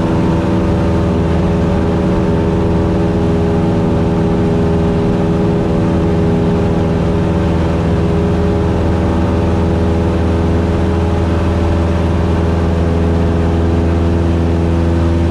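Cessna 172's piston engine and propeller running steadily in flight, a constant drone with no change in pitch.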